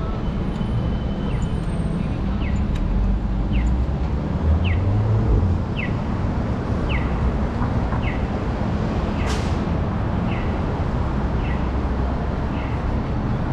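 Accessible pedestrian crossing signal sounding a short falling chirp about once a second, over a steady rumble of city traffic. A brief hiss cuts in about nine seconds in.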